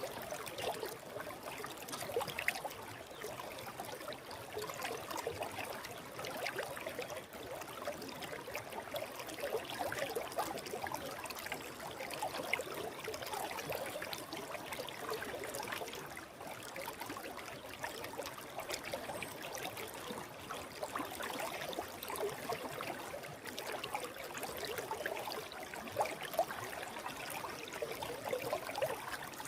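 Forest stream flowing steadily, water burbling and trickling over rocks.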